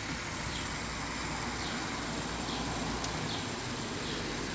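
Steady outdoor background noise, with faint short high chirps repeating about once a second.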